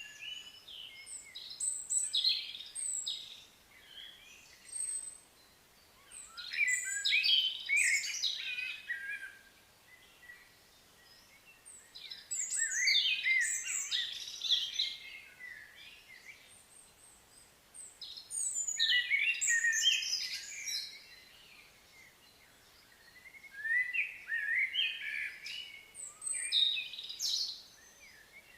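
A songbird singing a jumble of quick, high chirps and whistles, in phrases of two to three seconds that repeat about every six seconds.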